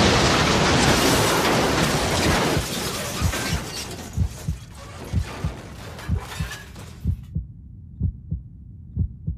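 Car crash noise: a loud burst of crashing and shattering that dies away over the first few seconds. It is followed by a heartbeat sound effect, paired thumps about once a second, which carries on alone after the rest of the sound cuts out about seven seconds in.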